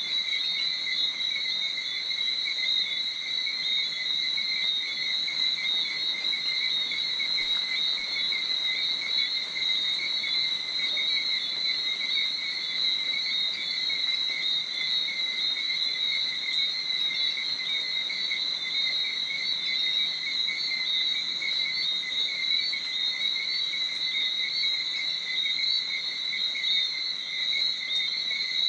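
A steady night chorus of insects: continuous high-pitched trilling on two pitches that never lets up.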